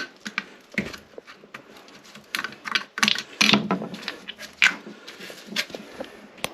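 Irregular clicks, taps and knocks of hand tools working on metal fittings, some sharp and some with a short scrape, loudest about two to four and a half seconds in.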